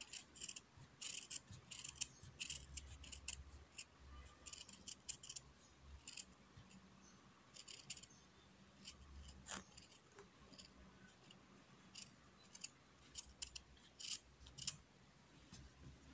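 Large scissors snipping through white felt, a series of faint, irregular snips, often several in quick succession.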